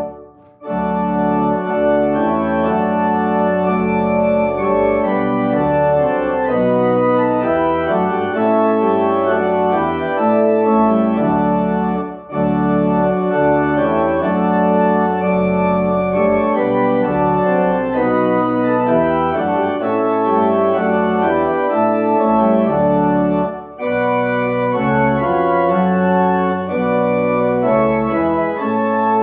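Organ music played in sustained, held chords that move from one to the next, with brief pauses between phrases just after the start, about midway and about four-fifths of the way through.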